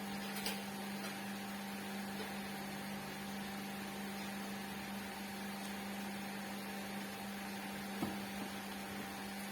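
Steady electrical hum with a faint even hiss, broken by a light click about half a second in and a soft knock about 8 seconds in.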